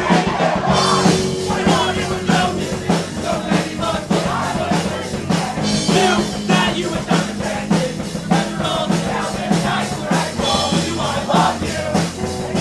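Live rock band playing at full volume: a steady drum-kit beat, electric guitars and bass, with singing over them.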